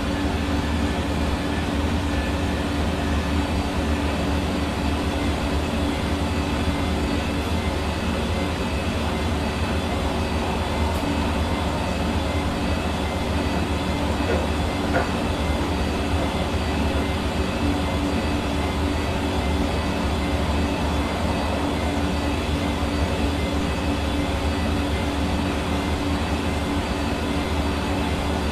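Hair dryer running continuously: a steady motor whir with a low hum over the rush of blown air, unchanging in pitch and level.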